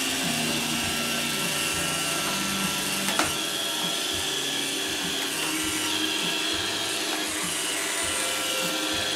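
iRobot Roomba 535 robot vacuum running, its vacuum motor and brushes whirring steadily, with one sharp knock about three seconds in as its bumper is tapped.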